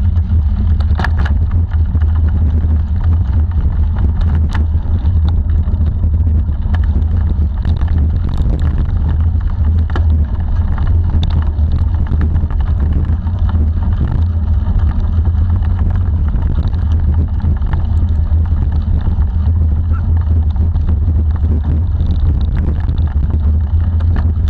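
Wind noise on a handlebar-mounted action camera's microphone at riding speed, with a bicycle's tyres rolling over a dirt and leaf trail. Short clicks and rattles from the bike are scattered through it.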